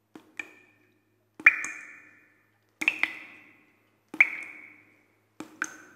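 Sparse chime notes over the closing title: short pinging strikes, single or in pairs, about every second and a half, each ringing briefly and fading away.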